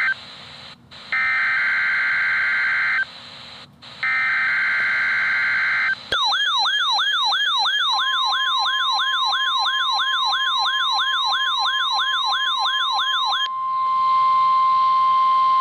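NOAA Weather Radio alert tones: the raspy SAME data bursts of the test header play three times with short gaps. About six seconds in a fast warbling siren starts, sweeping up and down about three times a second. About two seconds later the steady 1050 Hz warning alarm tone joins it and holds on alone, louder, after the warble stops.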